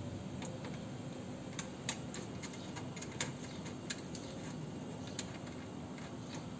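Scattered light metallic clicks and taps, about seven of them at irregular intervals, from hand tools and metal parts being handled while fitting car horns, over a steady low hum.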